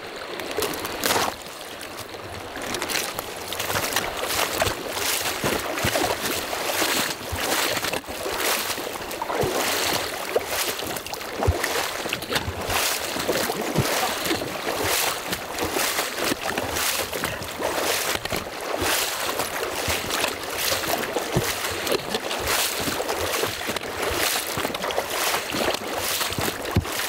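Shallow river water rushing and splashing around a person's legs as they wade across on foot, with irregular splashing steps through the current. The splashing gets louder about three seconds in.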